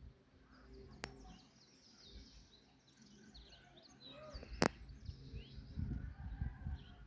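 Small birds chirping over a low outdoor rumble, with two sharp knocks: a light one about a second in and a louder one just past the middle.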